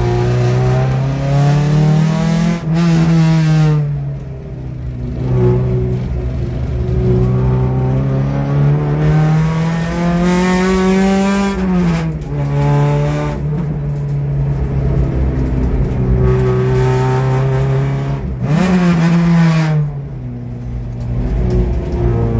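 Nissan Pulsar track car's engine heard from inside the cabin, under hard driving on a circuit. The revs climb and fall repeatedly, with sharp pitch drops about three seconds in, near the middle and near the end.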